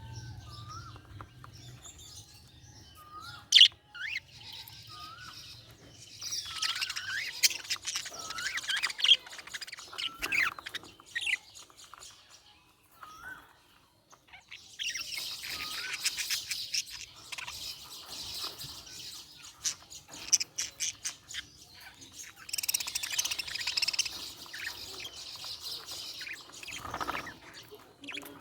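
Budgerigar chirping and warbling in bursts of rapid high chatter, with short rising whistles in the quieter gaps between bursts. A single sharp click comes about three and a half seconds in.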